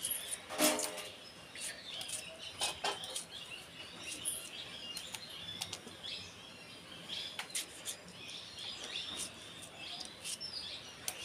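A knife cutting a tomato by hand over a pan, with tomato pieces dropping into the water in the pan in light, scattered clicks and plops. Small birds chirp faintly in the background.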